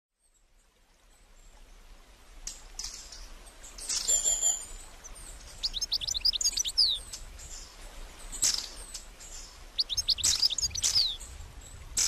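Songbirds singing and calling in woodland, fading in from silence over the first couple of seconds. Sharp single calls come through, along with two quick runs of falling whistled notes, about halfway through and again near the end.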